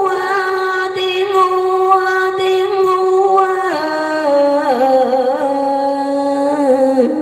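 A woman's voice chant-singing a Vietnamese poem, drawing out long held notes with no words breaking them. The pitch steps down to a lower note about halfway through and dips once more near the end.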